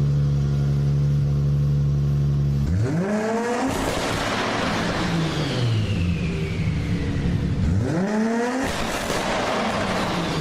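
Toyota Supra Mk4's 2JZ straight-six idling steadily, then revved hard twice, about two and a half and eight seconds in. After each rev the engine falls back slowly and a high whistle falls in pitch.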